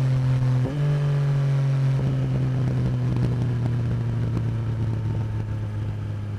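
Yamaha MT-09 SP's three-cylinder CP3 engine through an Akrapovic Racing Line exhaust: the revs jump up sharply once about a second in, then sink slowly and steadily as the exhaust note eases off, with a few faint crackles along the way.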